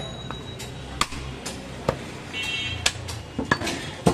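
Butcher's cleaver chopping goat meat on a wooden chopping block: sharp knocks about once a second, coming a little quicker near the end.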